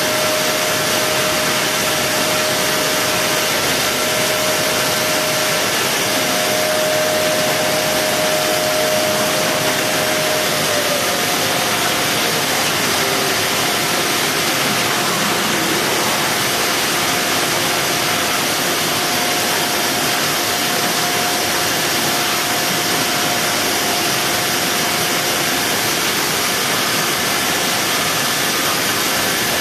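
Steady machinery noise from a box-palletizing line: an even hiss with a motor whine over it that shifts in pitch a few times, one tone gliding down about eleven seconds in.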